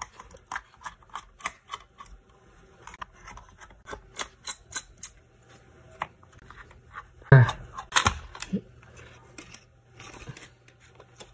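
Screws being taken out of a GeForce GTX 1060 graphics card: scattered light clicks and ticks of the screwdriver and small screws on the card's metal and plastic, with a louder knock about seven seconds in.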